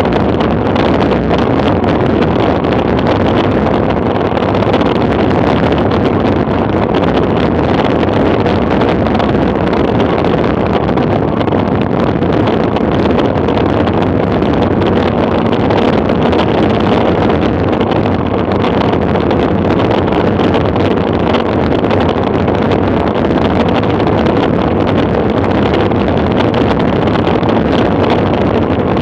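Steady wind noise rushing over the microphone of a camera mounted on a bicycle descending a paved road at speed, mixed with the road noise of the ride. It runs loud and even, with no breaks.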